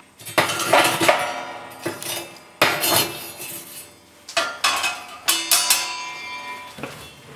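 Stainless steel ember sifter scraping, rattling and clanking against the steel firebox of a woodburning stove as hot coals are sifted out of the ashes. It comes in several bursts of clinks and knocks, with the steel ringing after the strikes.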